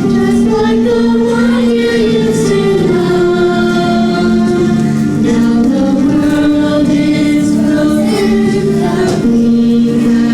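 A choir singing with musical accompaniment, holding long sustained notes that move from pitch to pitch.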